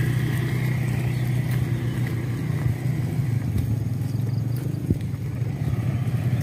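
Motorcycle engine running steadily at low revs while riding a rough, rutted dirt track, with a few brief knocks and rattles from the bumps.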